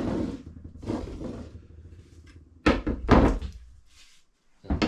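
Unfinished wooden axe handles knocking and clattering on a wooden bench as they are picked up and laid against one another. There are two loud knocks close together about three seconds in.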